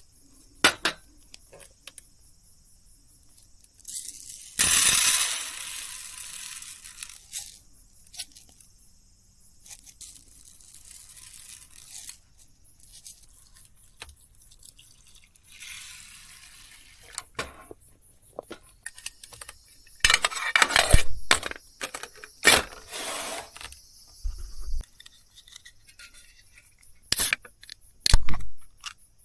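Intermittent handling noises: light clinks and knocks of objects being set down and moved, with a longer rustling, tearing sound about five seconds in and a run of sharper knocks later on.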